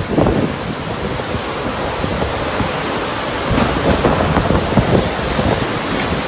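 Tornado-strength wind and heavy rain: a loud, continuous rush of noise with a deep rumble, buffeting the microphone and gusting louder a few seconds in.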